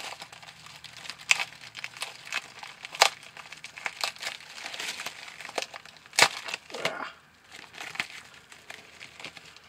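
Plastic shipping mailer crinkling and crackling as fingers pick at it and pull it open, with a few sharp snaps.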